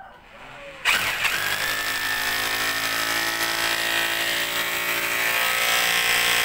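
Corded three-mode rotary hammer drill starting suddenly about a second in and running steadily at full speed as it bores a hole into the wall.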